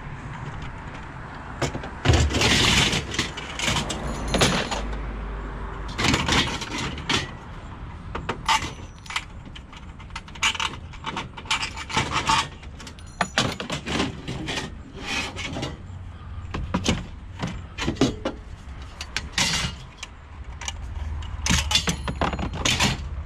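Scrap metal and wire being handled and loaded: irregular clanks, knocks and rattles, some with a brief metallic ring, over a low rumble.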